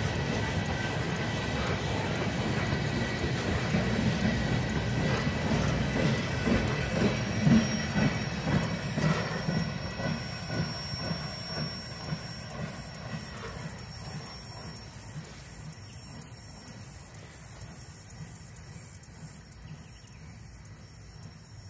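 Freight train flatcars rolling past on the rails, wheels clacking over rail joints with a thin, steady wheel squeal. The sound fades away as the end of the train passes and recedes.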